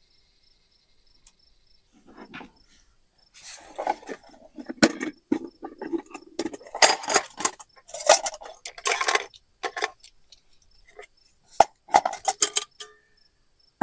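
Metal camp cookware and stove gear clinking and clattering as it is handled, a run of sharp clicks and knocks with short scrapes starting about three seconds in. Insects chirp faintly and steadily in the background.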